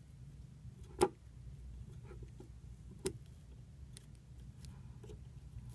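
Scissors snipping deer body hair: two sharp snips about two seconds apart, with fainter clicks between and after, over a low steady hum.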